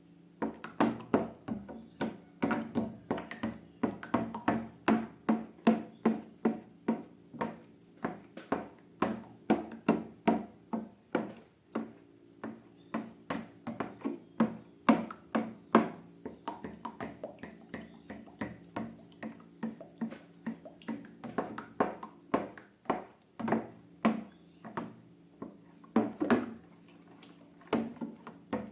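Slime being worked by hand, giving a quick run of short sticky clicks and taps, about two or three a second.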